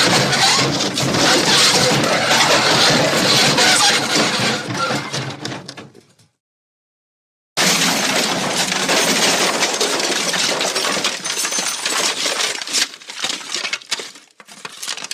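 Crash sound effects: a loud crash sound dies away and stops about six seconds in, then after a moment of silence a second crash starts and breaks up into scattered clinks and rattles of falling debris that fade out.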